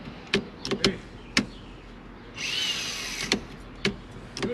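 Sharp plastic-and-metal clicks and knocks as the turn signal switch and lever are fitted into a Dodge Ram D150 steering column, about seven or eight in all, with a brief whir lasting under a second around the middle.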